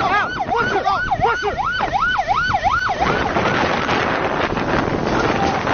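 A siren wailing rapidly up and down, about three cycles a second, for the first three seconds. It then gives way to a loud rush of water and wind as waves break over a small boat.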